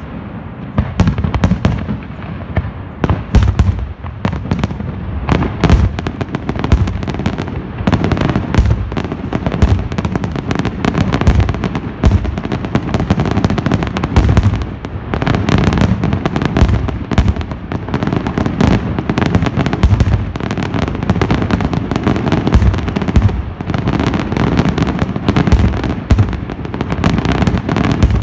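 Fireworks display firing a rapid, unbroken barrage: aerial shells and crackling bursts going off many times a second, the bangs overlapping without pause.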